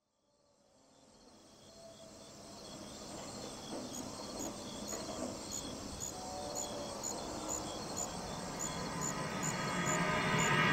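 Countryside ambience fading in from silence and growing louder: a high, regular chirping about twice a second over a low outdoor rumble, with a few faint calls.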